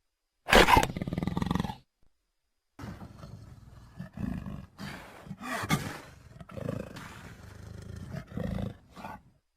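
Velociraptor creature sound effects: one loud call about half a second in that lasts about a second, then after a short silence a string of six or so quieter, shorter calls.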